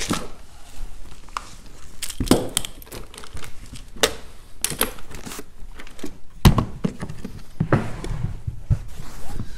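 Handling of cables and a plastic hard equipment case: rustling and a series of sharp clicks and knocks as gear is packed in, with a few heavier thuds as the case lid is shut and the case is pushed along the bench.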